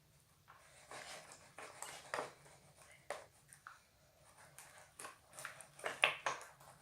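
Irregular sticky squelches and clicks from craft glue being mixed with paint for slime, starting about half a second in and loudest near the end.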